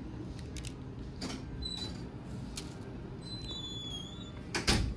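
A plastic spoon clicking and scraping lightly at bowls of shaved ice over a low café background hum, with one louder knock near the end.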